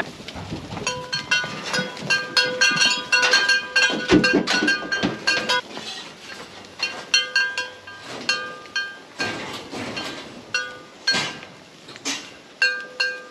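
Metal livestock pen panels and gates clanking and clinking as goats are worked through them: many quick strikes, each ringing briefly at the same pitch, with a few duller knocks about four seconds in.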